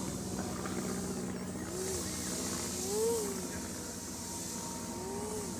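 Electric motor and propeller of a foam RC plane holding a nose-up hover. The whine rises and falls several times as the throttle is worked, highest about three seconds in.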